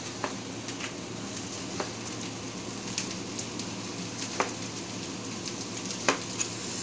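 Fried rice sizzling steadily in a wok over a gas flame, with a few sharp taps of a chef's knife against a plastic cutting board as a tomato is sliced.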